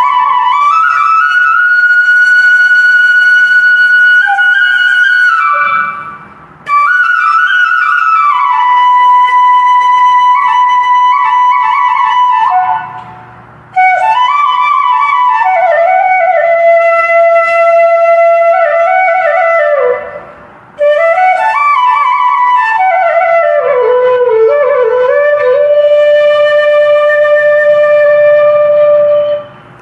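Background music: a slow solo flute melody in four long phrases, each ending on a long held note, with short breaks between the phrases.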